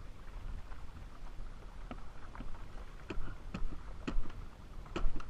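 Wind rumbling on the microphone, and from about two seconds in a series of short, sharp knocks on the plastic hull of a sit-on-top fishing kayak, roughly every half second.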